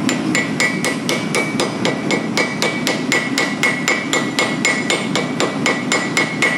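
Hand hammer striking a white-hot billet of stacked blister steel bars on an anvil, quick light blows about four a second, the anvil ringing with each strike. These are setting a forge weld at welding heat, where little force is needed to make the bars stick, joining them into shear steel.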